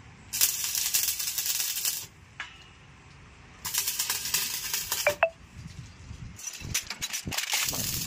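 Stick arc welding on steel grill bars: three short tack welds, each a crackling hiss lasting about a second and a half, with short pauses between.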